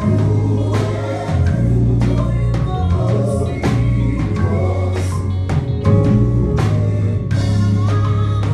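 A song with singing over a steady drum-kit beat and a bass line, in a gospel style.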